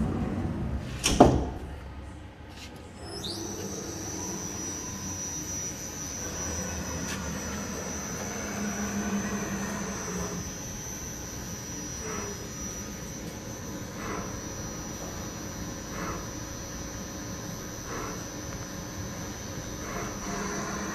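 Semco L500 CNC lathe running: a sharp clack about a second in, then a high whine that rises about three seconds in as the machine runs up, holds steady with faint ticks roughly every two seconds, and falls away near the end.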